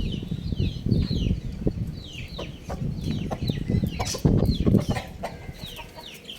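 Chickens calling: a steady run of short, high, falling chirps, several a second, over a low rumbling noise.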